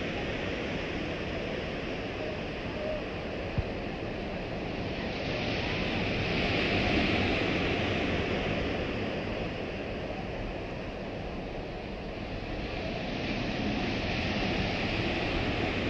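Ocean surf breaking on a beach: a steady rushing wash that swells louder twice as waves come in, with some wind buffeting the microphone. A single short click about three and a half seconds in.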